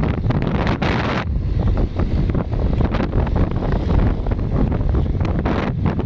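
Heavy wind buffeting the microphone of a motorcycle rider at speed, a steady low rumble with rapid flutter and gusts.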